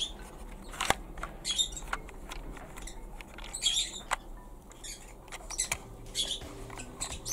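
Hands handling a plastic Polly Pocket compact playset and its cardboard box: scattered small plastic clicks and taps with short bursts of rustling.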